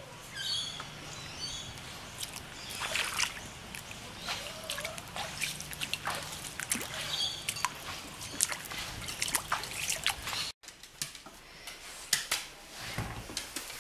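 Footsteps wading through shallow floodwater, sloshing and splashing irregularly, with trickling and dripping water. The water sounds cut off abruptly about ten seconds in, and quieter indoor sounds follow.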